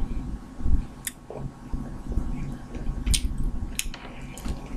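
Crawfish shells cracking and tearing as they are peeled by hand: a few short, sharp crackles, one about a second in and two more between three and four seconds in, over low thumps.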